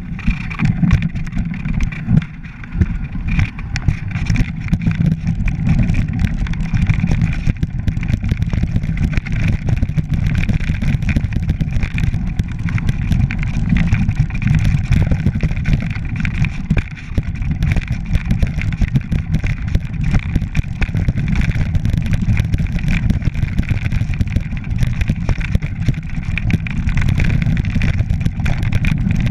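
Mountain bike riding down a rocky track: heavy wind rumble on the camera microphone with a constant clatter and rattle of tyres and bike over loose stones.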